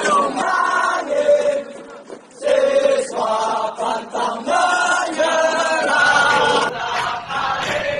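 A large group of male police recruits chanting a running cadence in unison while jogging, in loud sung phrases with a short pause about two seconds in.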